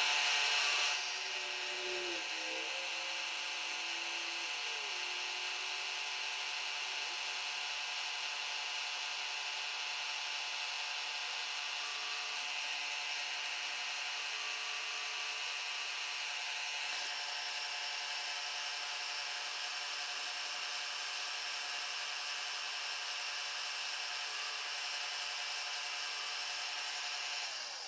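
Milling machine spindle running a slitting saw on its arbor: a steady whine made of many high tones. It is a little louder in the first second, with a few lower tones sliding in pitch over the next few seconds.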